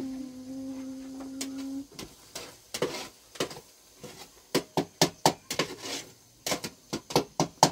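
A steady held tone for about two seconds, then a string of sharp knocks and clatters of hard objects, several a second and thickest near the end.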